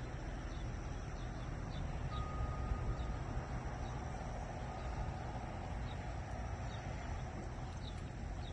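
Outdoor nature ambience: crickets or other insects trilling steadily, with scattered short bird chirps over a steady low rumble and hiss. A single faint wind-chime note rings about two seconds in.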